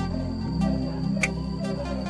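Background music: a steady electronic track with low sustained notes and a light regular tick.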